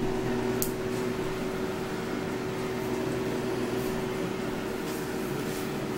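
Chefman air fryer running while it cooks: its fan blowing with a steady hum and a single held tone. A brief click comes about half a second in.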